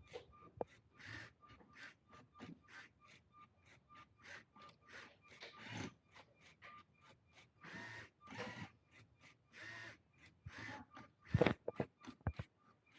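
LEGO Spike Prime motors driving a pen plotter in short stop-start moves as it draws letters, with the pen scraping on the paper.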